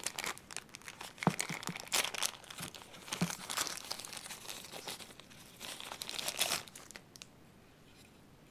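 Plastic wrapping crinkling and crackling with sharp little clicks as a wall charger is unwrapped by hand; it stops about seven seconds in.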